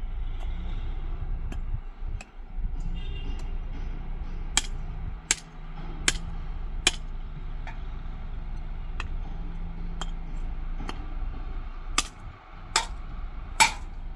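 Sharp clinking knocks, some single and some in runs about three-quarters of a second apart, over a steady low rumble.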